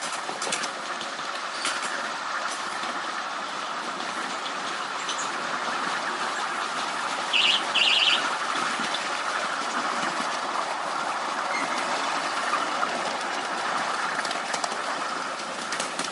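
Ride-on miniature railway train running along the track: a steady rumble of small wheels on the rails with occasional clicks. About halfway through come two short shrill sounds, the loudest thing heard.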